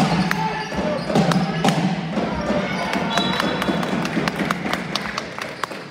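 Basketballs bouncing on a hard court floor: a quick, irregular run of thuds, about three a second, from more than one ball being dribbled.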